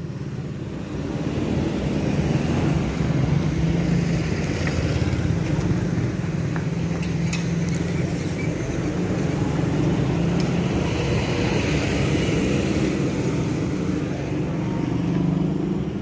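A motor vehicle's engine running steadily with a low hum and road noise.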